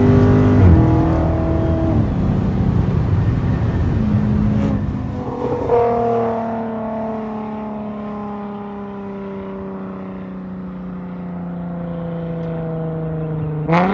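Lexus RC 350's 3.5-litre V6 exhaust. The engine note drops off about a second in, then comes a rough, crackling stretch of a few seconds with a couple of sharp pops. After that a steady drone slowly falls in pitch, and a sharp pop or blip comes at the very end.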